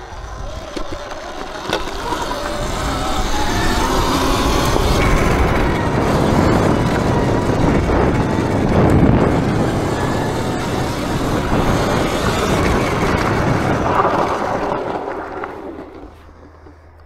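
Wind and riding noise from a Sur-Ron electric dirt bike on the move, with only a faint motor whine, building up for about nine seconds and then dying away as the bike slows near the end.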